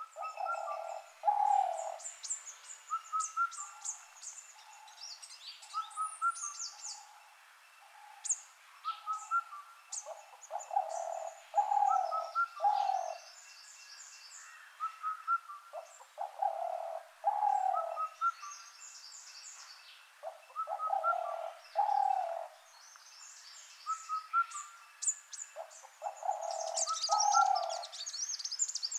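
Forest birds calling. A low call of two or three notes repeats about every five seconds, with a short higher note recurring between, and quick high chirps and trills over it.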